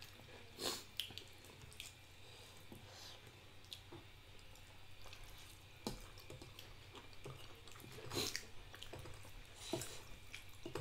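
Quiet eating sounds from two people eating noodles: scattered small clicks of forks against ceramic bowls and a few short sucking sounds, the loudest about a second in and again about eight seconds in.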